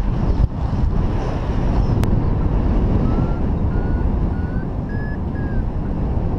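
Wind rushing over the microphone in flight under a paraglider. From about three seconds in, a paragliding variometer beeps in short tones about half a second apart, its pitch stepping up, which signals the glider climbing in lift. A single sharp click comes about two seconds in.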